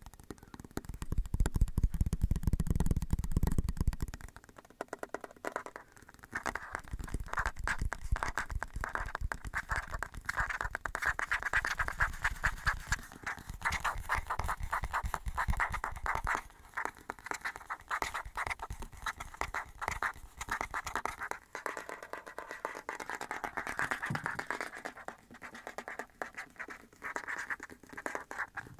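Fast, irregular scratching and rubbing close to the microphone, with a steady patter of small crackles.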